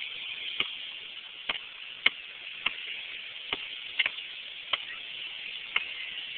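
A basketball bouncing on asphalt as it is dribbled: sharp smacks at an uneven pace, about one a second, over a steady hiss.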